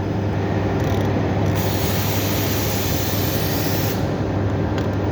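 A steady low hum under a hiss of about two and a half seconds in the middle, like pressurised air or spray let out of a nozzle.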